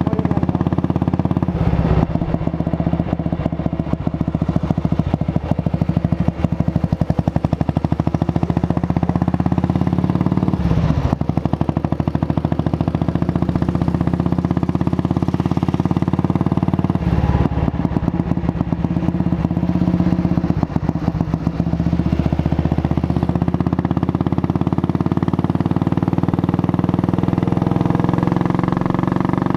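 Junak M10 motorcycle's single-cylinder four-stroke engine running steadily under way, the note dipping briefly about two, eleven and seventeen seconds in and rising near the end.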